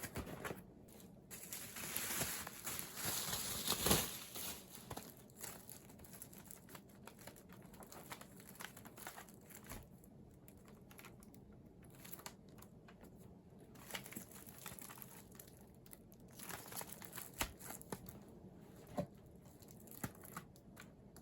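Packaging crinkling and rustling as a CD package is opened by hand, loudest from about two to four seconds in, with scattered small clicks and taps of handling.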